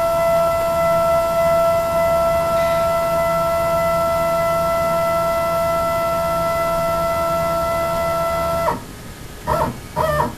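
Z-axis stepper motor of a CNC-converted Grizzly mini mill driving the head down, a steady multi-tone whine over a low hum, as the axis travels toward its soft limit. The whine cuts off suddenly near the end when the head stops, and a couple of brief sounds follow.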